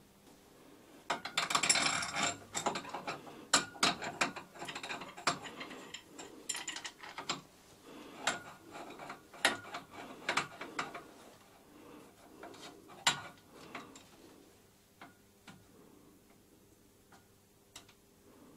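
Irregular metal clicks and clatter from hand work on a vintage Karger lathe's headstock, where an MT3 face-mill arbor is being fitted in the spindle. About fourteen seconds in, the clatter thins to a few single ticks.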